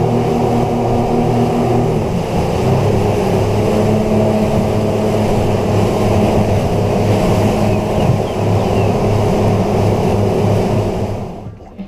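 Twin Yamaha outboard motors running steadily at cruising speed, heard from inside the boat's cabin under a hiss of wind and water, the engine note dipping slightly about two seconds in. The sound drops away sharply near the end.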